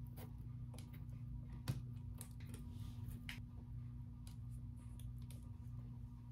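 Faint, scattered light clicks and taps of Christmas ornament balls knocking together as they are handled and pressed into place, with one sharper click about a second and a half in, over a steady low hum.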